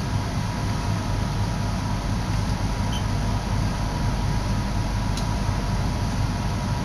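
Inside a commuter train pulling out of a station: a steady low rumble of the running train with a thin steady whine above it, and a couple of faint ticks near the middle.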